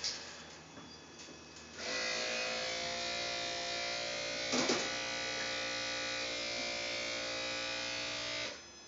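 Electric brake-booster vacuum pump of a 2012 Lincoln MKZ Hybrid buzzing steadily, set off by the brake pedal; it starts about two seconds in and cuts off suddenly near the end, with a brief louder rustle about halfway through. This is normal for the hybrid: the pump keeps up brake vacuum while the petrol engine is off.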